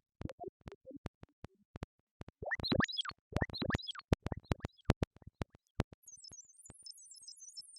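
Synthesized electronic robot sound effects: a run of sharp clicks mixed with short blips, chirping pitch sweeps about two and a half to four seconds in, then a faint high warbling twitter near the end.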